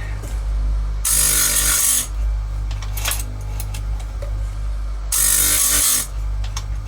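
Electric chain grinder running with a steady hum, its wheel grinding a saw-chain cutter twice, each pass about a second long, with a short click in between. This is the sharpening of a Stihl MS181 chain's cutters at a 30-degree angle.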